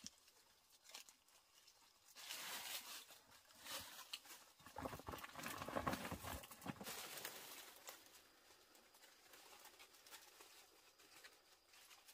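Rustling of dry leaf litter and a woven plastic sack as fallen palm fruits are gathered by hand and put into the sack. The rustling swells in the middle and then fades to faint scratching.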